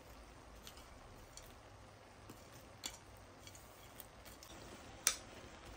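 Faint scattered clicks and taps of fried nut pieces (almonds, coconut slices, pistachios) dropped by hand onto cooked rice in a pan, with one sharper tap about five seconds in.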